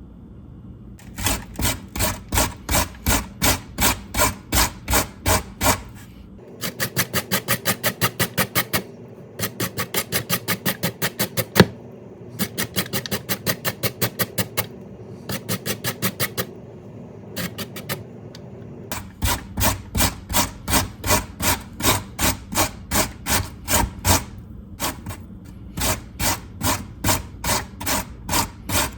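Potatoes being grated by hand on a metal grater: repeated rasping strokes, about three a second, quickening to about five a second for a long stretch in the middle, with short pauses between runs.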